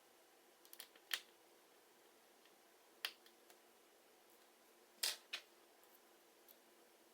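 A handful of short, sharp clicks and taps from a precision screwdriver and tiny phone screws and metal shields being handled: one about a second in, one about three seconds in and a close pair around five seconds, over a faint steady hiss.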